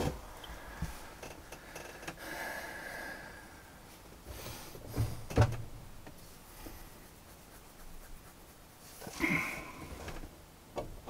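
A few scattered knocks and rustles over a quiet background, with a louder scuffling noise about nine seconds in and a couple of sharp clicks near the end.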